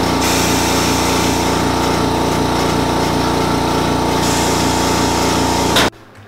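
Shop machine motor running steadily, with an even pulsing hum, cutting off abruptly near the end.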